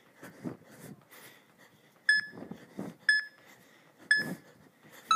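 Interval timer on a tablet beeping three short beeps about a second apart, counting down the last seconds of the work interval, with softer low sounds in between.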